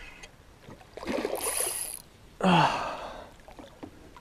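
A man's breathy gasp followed by a voiced sigh that falls in pitch, about a second apart.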